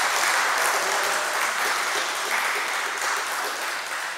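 Applause, a dense patter of hand clapping that fades toward the end.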